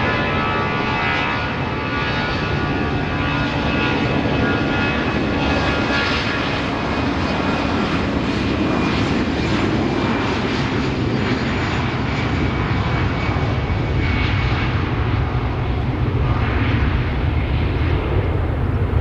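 Airbus A320's jet engines at high power: a whine of steady tones that fades over the first several seconds while a deep roar builds and grows slightly louder near the end.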